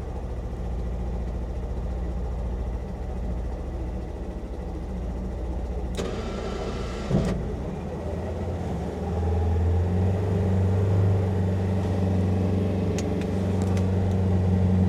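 Polaris Ranger XP 1000 Northstar side-by-side engine running, heard from inside its cab while plowing heavy wet snow. A brief hiss ending in a thump comes about six to seven seconds in, and the engine then gets louder and steadier as it works harder pushing the snow.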